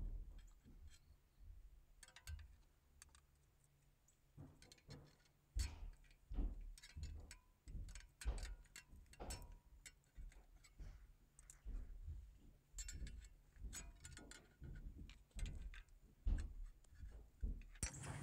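Screwdriver working a steel anti-rattle spring clip onto a brake caliper: light, scattered metal clicks and scrapes, sparse for the first few seconds, then frequent until the clip tab locks in.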